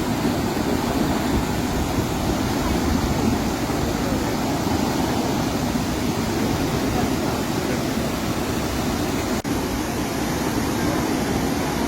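Waterfall in full flow: a steady, loud rush of falling water, with a brief dropout about nine and a half seconds in.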